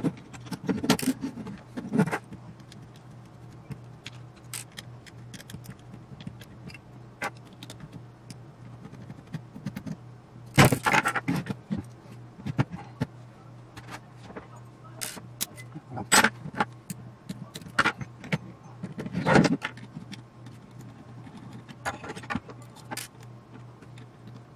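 Metal electronics chassis and parts being handled during disassembly: irregular clicks, clinks and knocks of metal on metal and on a wooden bench, with a few louder knocks.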